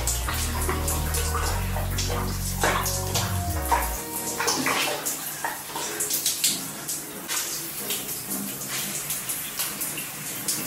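Shower water running and splashing, with irregular spatters, over background music whose bass drops out about four seconds in.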